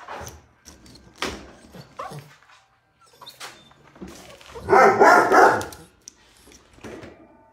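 A dog barking several times. The loudest, longest bark comes about five seconds in.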